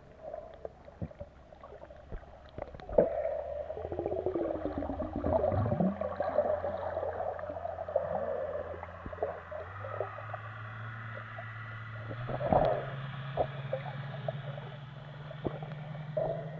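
Underwater sound picked up by a submerged camera: a steady low hum that steps up in pitch twice, about ten and twelve seconds in, over gurgling and many scattered sharp clicks. A falling whine runs down in pitch around five seconds in.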